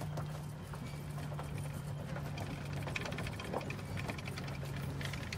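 Footsteps crunching on dry leaf litter and mulch, over a steady low hum that stops near the end.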